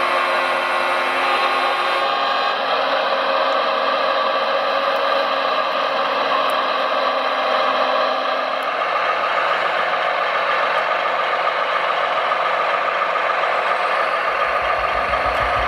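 Radio-controlled construction vehicles running, a steady mechanical whine and whir from their motors and gearing. A low, evenly repeating pulse comes in near the end.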